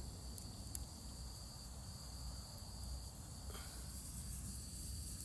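Insects trilling steadily in the background, a single high-pitched note with brief breaks, over a low rumble. Two sharp clicks come within the first second.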